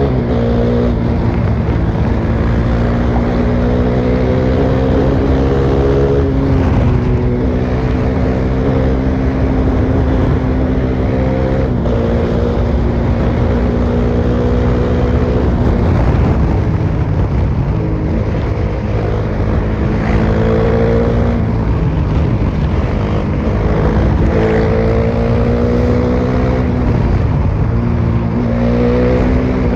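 Bajaj Dominar 400's single-cylinder engine running on the highway through an open exhaust with the muffler removed. The note climbs as it accelerates and drops back at each upshift, several times.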